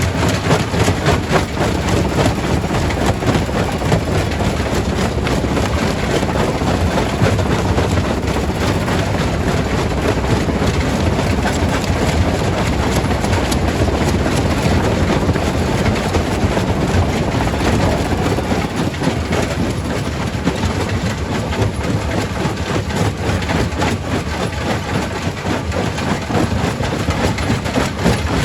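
Quarry primary rock crusher running and crushing stone: a steady, loud machine drone under a constant dense clatter and knocking of rock breaking.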